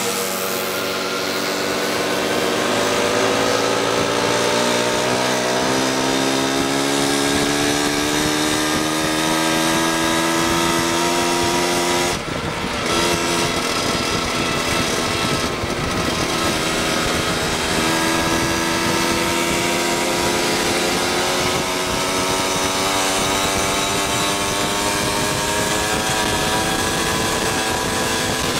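Two-stroke moped engine running under way, its pitch slowly climbing as speed builds. About twelve seconds in there is a brief dip, then the pitch climbs slowly again.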